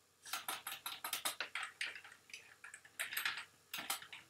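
Computer keyboard typing: quick runs of key clicks, with a short pause about two and a half seconds in and a last couple of clicks near the end.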